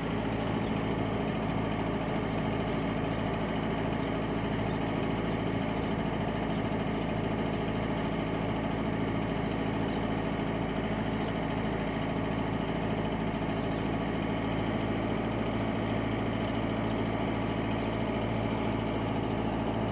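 Peugeot 406's 2.0 HDi four-cylinder diesel idling steadily, heard from inside the car. The engine has a fuel-pressure fault that makes it cut out after a couple of minutes.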